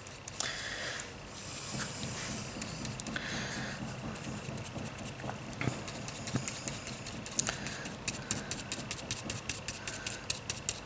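Stiff dry brush working paint through a thin plastic stencil onto paper: soft scratchy brush strokes, then from about eight seconds in quick light dabs, several a second.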